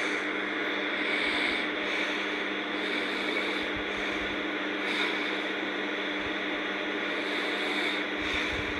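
Steady hiss with a faint constant hum, with no clear snoring.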